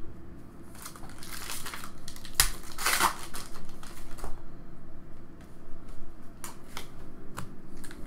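Foil trading-card pack wrapper crinkling as it is handled and pulled open, loudest about two and three seconds in, followed later by a few light clicks.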